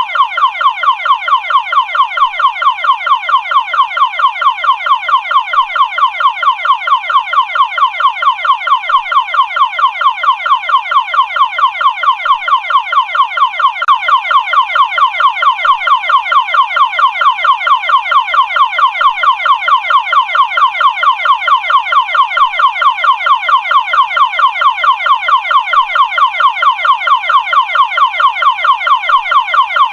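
Electronic warning alarm tone repeating short rising sweeps, about four a second, loud and unchanging.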